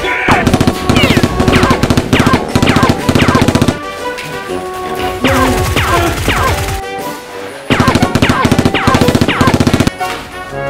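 Automatic-gunfire sound effect in rapid bursts, dubbed over toy Nerf blaster shooting, with a gap of a few seconds in the middle. Background music plays under it.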